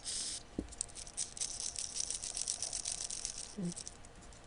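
A short hiss from an aerosol can of WD-40-type penetrating oil spraying. It is followed by about three seconds of rapid, irregular fine crackling and clicking, which thins out near the end.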